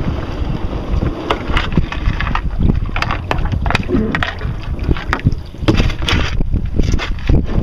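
Wind buffeting the microphone in a steady low rumble, with water splashing and slapping against a canoe's hull in short, irregular bursts.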